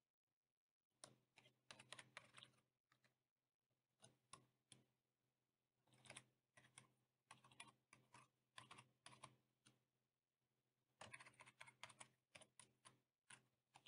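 Faint computer keyboard typing: several short bursts of keystrokes with pauses between them.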